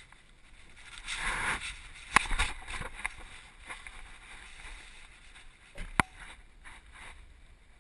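Rubbing and knocking of a camera hung from a dog's collar as the dog moves about, its housing brushing against fabric and a bag. A rustling swell comes about a second in, a few sharp knocks follow between two and three seconds, and one more sharp knock comes about six seconds in.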